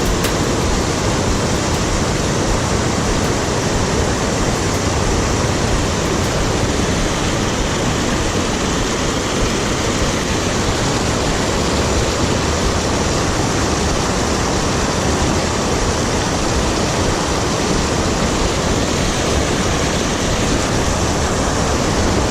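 Small creek waterfall rushing steadily, an even wash of falling water.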